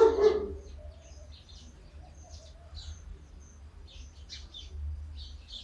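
Small birds chirping, with short high chirps scattered all through, over a low steady rumble.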